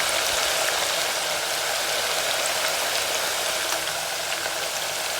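Marinated chicken pieces deep-frying in a pan of hot oil, a loud steady sizzle.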